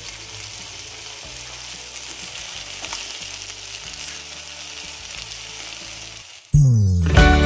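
Chicken patties sizzling steadily as they fry on a flat griddle, with the odd scrape of a wooden spatula. Near the end the sizzle cuts out and a loud music jingle starts.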